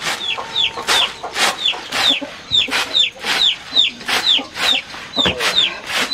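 Chickens clucking, a steady run of short, high, falling calls about twice a second.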